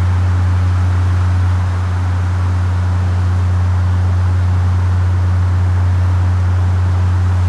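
Steady, loud low-frequency hum with a fainter tone about twice its pitch, unbroken over a constant hiss; the mysterious hum heard in Toronto during Hurricane Sandy, comparable to the Windsor hum.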